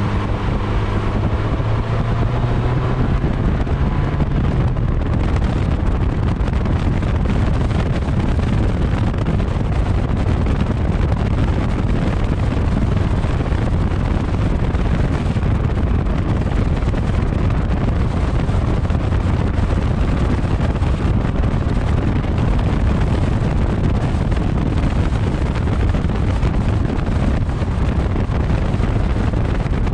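Exterior drive-by noise of a 2012 Fiat 500 Abarth at speed, heard from a mount beside the front wheel: heavy wind buffeting on the microphone over tyre roar on asphalt. The engine's tone rises slightly over the first few seconds, then is lost under the wind and road noise.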